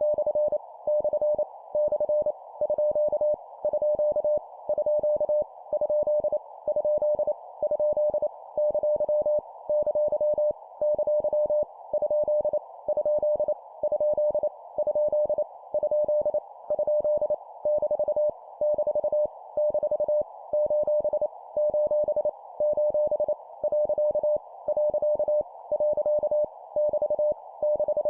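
Morse code (CW) practice tone, a single pitch near 600 Hz keyed on and off in dots and dashes at 25 words per minute, sending random punctuation marks, with short gaps between characters and a faint hiss around the tone.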